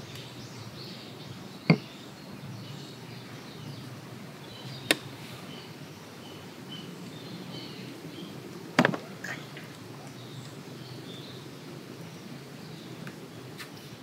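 Steady outdoor background noise with faint high chirps, broken by three sharp clicks about two, five and nine seconds in.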